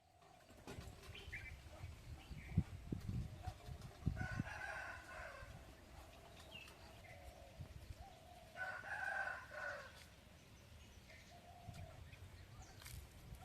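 Rooster crowing twice, about four seconds apart, each crow lasting about a second, with short bird chirps and a few low thumps between.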